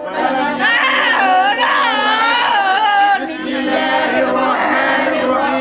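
Several men chanting Qur'anic recitation together in loud overlapping voices, with a high crying voice drawn out among them.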